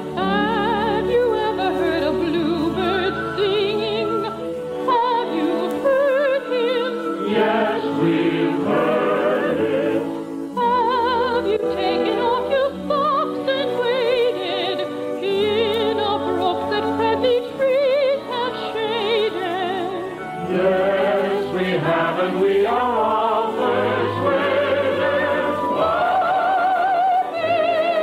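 An operetta number: a choir and operatic voices singing with wide vibrato, with the dull, narrow sound of an early-1950s radio transcription.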